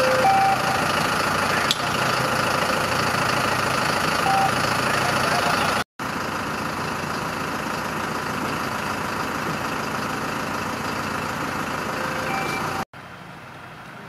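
Heavy fire-brigade trucks with diesel engines running, a steady mechanical din with a few short electronic beeps. The sound breaks off twice, the last stretch quieter.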